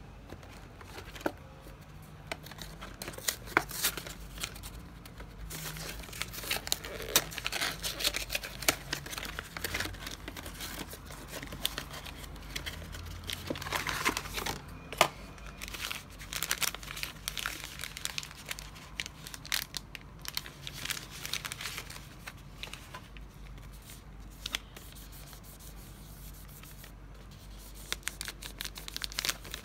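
A cardboard snack box being torn open and handled, with irregular tearing, cracking and rustling of the paperboard. It is busiest in the first half and quieter for a few seconds before the end. Near the end a foil-lined crisp bag is crinkled in the hands.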